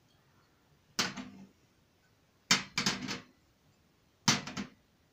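Porcelain coffee cups being set down one after another on metal saucers on a tray, a sharp clink each time. About six clinks come in small groups: one, then three close together, then two.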